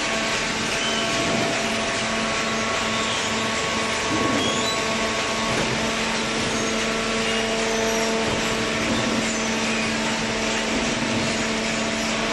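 Hydraulic power unit of a vertical baling press running: an electric motor and pump giving a steady hum over a constant hiss.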